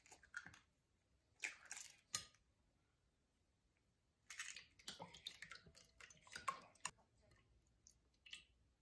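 Eggs knocked and broken open over a glass dish, a few sharp cracks near the start. After a short pause, a wire whisk beats the eggs in the glass dish: quick clinking for about three seconds, then a few light ticks.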